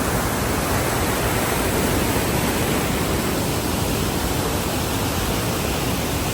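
Steady, loud rushing roar of a waterfall running high after heavy rainfall.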